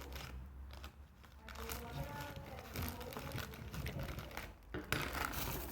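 Plastic bags crinkling as balled-up scraps of plastic bag are pushed into a small plastic bag, in irregular short rustles.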